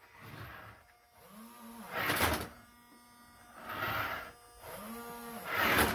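Hand-pushed cardboard model demolition-derby cars scraping and bumping across a wooden desktop, with mouth-made engine noises: rising-and-falling hums and hissing crash sounds, in about four short bursts.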